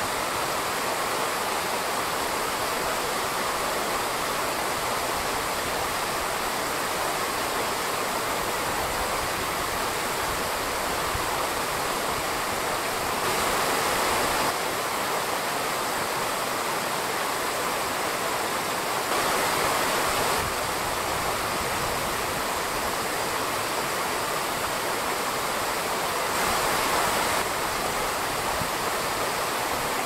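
Shallow mountain stream running over stones: a steady rush of water that swells louder briefly three times.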